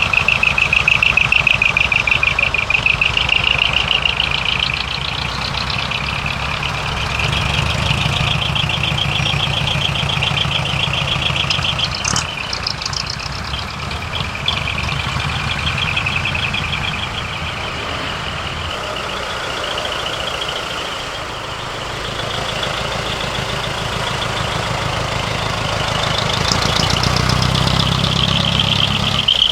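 Diesel engines of large decorated trucks running at low speed as they pull in, swelling and fading as they pass, with a short air hiss about twelve seconds in.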